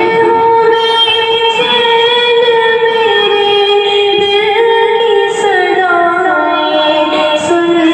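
A voice singing a dua, an Islamic prayer, in long held notes that step and slide slowly from pitch to pitch.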